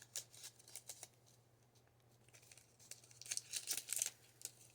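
A baseball card pack's wrapper being torn open and crinkled: a few faint crackles in the first second, then a denser run of crinkling about three seconds in.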